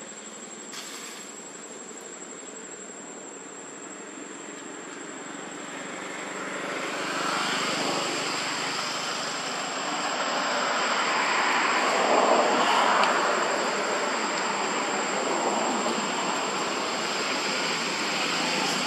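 A rushing drone, typical of an aircraft passing overhead, swelling from about a third of the way in and loudest around the middle, over a thin, steady high whine.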